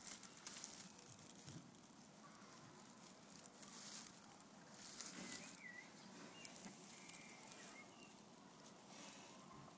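Near silence with faint, intermittent rustling of the hay and fur nesting material as it is moved, plus a few faint high chirps about halfway through.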